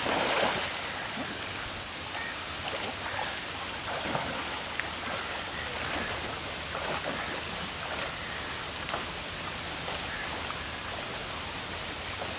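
Pool water splashing and lapping as a person swims. A louder rush of splashing fades about half a second in, then a steady wash with small scattered splashes.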